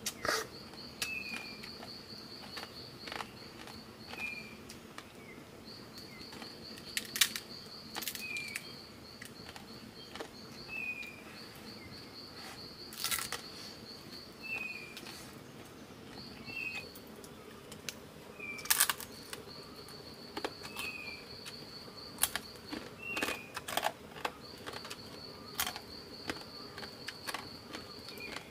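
Forest ambience: a high, pulsed insect-like trill that repeats in runs of a few seconds with short pauses, a bird giving short falling chirps every second or two, and scattered sharp clicks and knocks.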